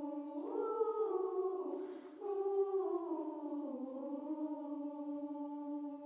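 Children's choir humming a slow, wordless melody in long gliding phrases, with a brief breath pause about two seconds in.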